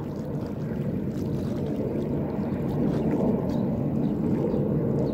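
Steady low rumble of a Skjold-class fast missile boat running at high speed far out across the water. It is an even, unpitched noise that holds level throughout.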